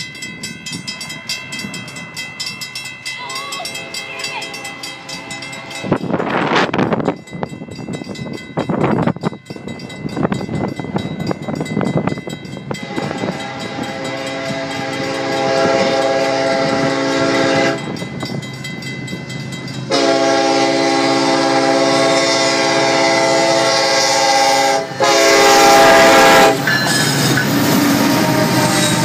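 Mechanical railroad-crossing bells ring rapidly while a Union Pacific freight locomotive's air horn comes in faintly and grows loud as the train approaches. The horn sounds two long blasts, a short louder one and a final long one as the locomotive reaches the crossing. Two brief whooshes come about six and nine seconds in.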